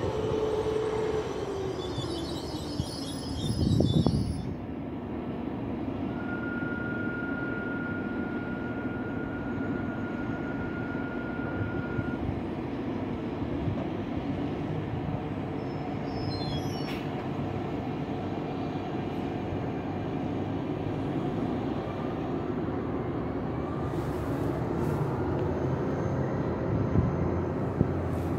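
Alstom Régiolis multiple unit at a station platform: its motor whine falls in pitch as it slows early on, a steady beep sounds for about six seconds, and the train's machinery runs steadily. A thud comes about four seconds in.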